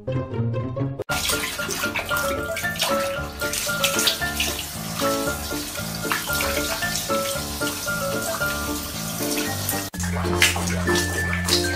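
Water running from a tap and splashing in a sink, under background music.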